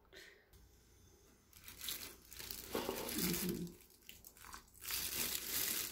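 Rustling as the ruellia cuttings and the plastic pot are handled, then, from about five seconds in, a hiss of water from a hand shower head spraying gently onto the potting soil.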